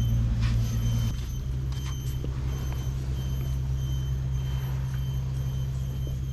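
Steady low engine drone, a deep hum that drops a little about a second in, with a few faint knife taps and scrapes on the fish over it.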